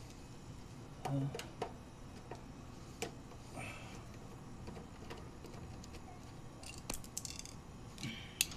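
Scattered light clicks and taps of a nut driver on the screws and metal bracket as the refrigerator's water inlet valve is unscrewed, with a short cluster of clicks near the end. A steady low hum runs underneath, the refrigerator still running.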